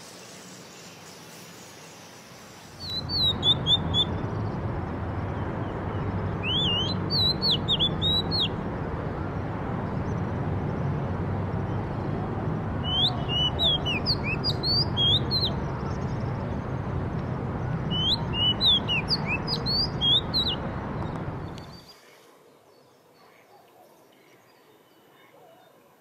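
Birds chirping in four quick clusters of short, sharply rising and falling high notes over a steady rushing background noise. The rushing noise starts about three seconds in and cuts off suddenly near the end, leaving only a faint background.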